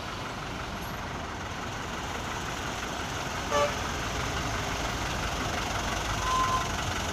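Steady traffic noise of vehicles passing on a toll road, slowly growing louder. About three and a half seconds in a vehicle horn gives one short toot, and a brief, fainter beep follows near the end.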